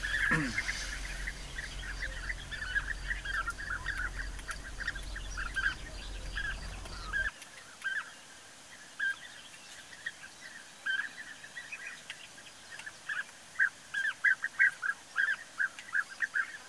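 European bee-eaters calling: many short, repeated calls, scattered at first and coming thick and fast near the end. A low rumble sits under the first seven seconds and cuts off abruptly.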